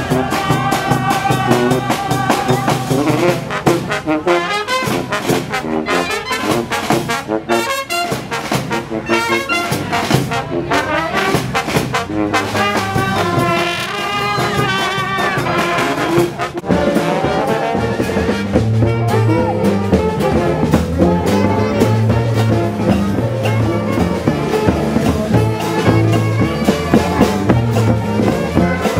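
Street brass band playing, with trumpets and trombones. About sixteen seconds in the music changes abruptly to another tune with a heavier, repeating bass line.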